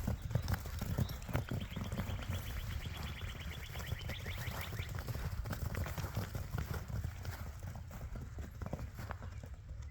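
Paws running over frozen ground: a quick, irregular patter of hollow-sounding thuds.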